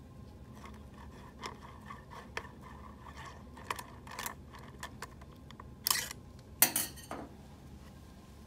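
Small metal ticks and scrapes of a 2.5 mm Allen wrench working the screws that hold the print engine in a CoPilot 500 print head. Then two louder clattering metal clinks as the steel head housing is handled.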